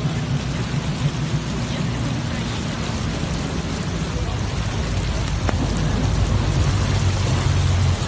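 Heavy rain pouring down onto a flooded street, a steady dense hiss of drops hitting standing water. A low rumble runs underneath and grows louder over the last few seconds.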